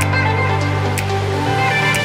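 Electronic background music with held bass notes that change about one and a half seconds in.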